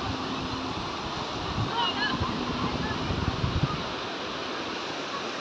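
A fast mountain river rushing over rocks, a steady hiss of white water, with a few faint high chirps about two seconds in.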